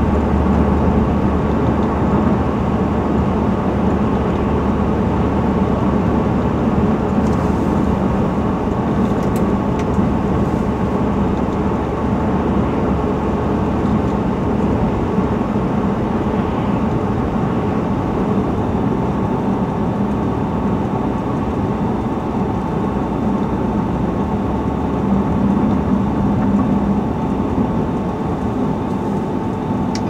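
Steady road noise of a car driving, heard from inside the cabin: engine hum and tyres on pavement.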